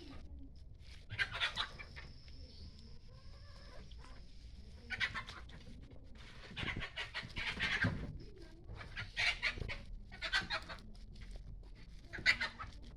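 Domestic chickens clucking in about six short bursts at irregular intervals, with a faint steady high-pitched whine during the first few seconds.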